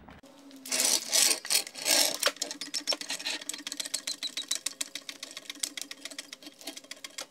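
A jack being raised under the car's front subframe: a rapid run of mechanical clicks, several a second, over a faint steady hum, loudest in the first couple of seconds.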